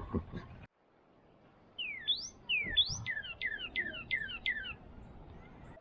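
A short low thud, then a songbird sings a run of quick whistled notes, each sliding down in pitch, about four a second.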